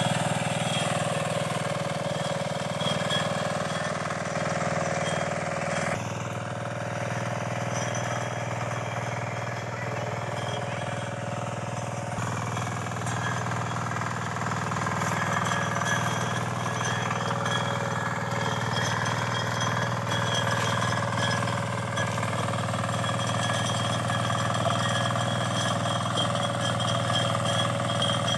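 Engine of a 9 hp power tiller running steadily with a rapid, even knock. Its note shifts slightly about six seconds in.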